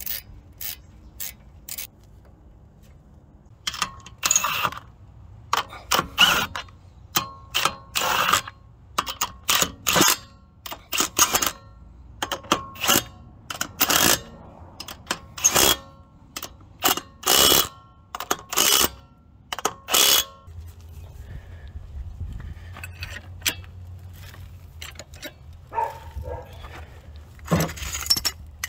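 Ratchet wrench worked in short repeated strokes, roughly one or two a second, tightening bolts on a Honda Civic's front brake assembly. A low steady rumble with a few knocks follows in the last third.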